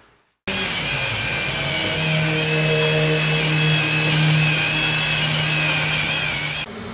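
Handheld power tool running steadily, cleaning rust and crud off a car's wheel-hub mounting face before a new brake rotor goes on. It starts abruptly about half a second in and cuts off abruptly near the end.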